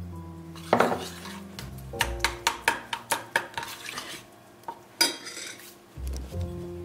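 A spoon stirring thick raspberry chia seed jam in a stainless steel saucepan, clinking and scraping against the pan. The strokes come in a quick run of sharp clinks, about four a second, in the middle.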